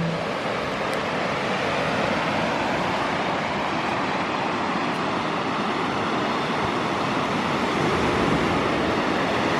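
Steady rushing wash of waves breaking on a lakeshore.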